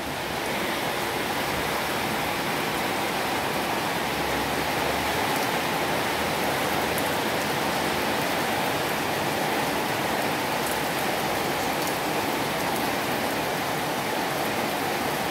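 Heavy rain falling steadily, splashing onto standing water on tiled paving.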